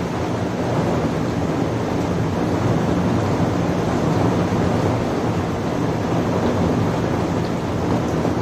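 Heavy rain falling: a steady, low rushing noise with no breaks.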